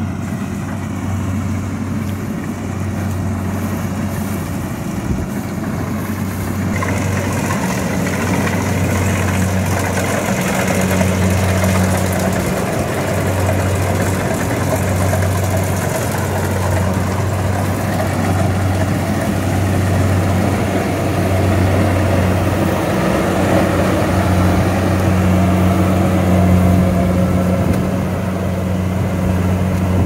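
Kubota SR40 rice combine harvester working through standing rice: its diesel engine runs as a steady drone under the rattle and rush of the machinery, growing louder about seven seconds in as it comes close.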